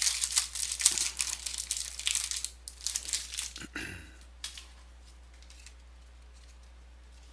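Foil wrapper of a trading-card pack being torn open and crinkled in the hands; the crinkling stops about four seconds in.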